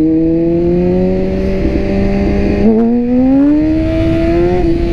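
BMW S1000RR sportbike's inline-four engine, fitted with a Silmoto full exhaust system, heard from the rider's seat while riding at steady, easy revs. About three seconds in the throttle opens and the revs climb steadily for a couple of seconds, easing slightly near the end.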